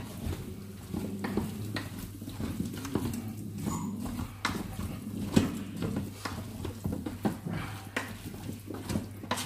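Chicken pieces being stirred in the hot pot of a Cookeo multicooker in browning mode, with irregular knocks and scrapes of the utensil against the pot over a faint sizzle and a low steady hum.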